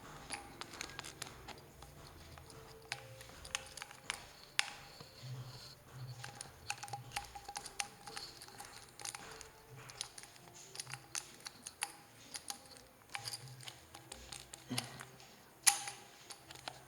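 Irregular small clicks and knocks of hard plastic and metal parts being handled, as a bit or accessory is fitted into the drill's chuck, over faint background music.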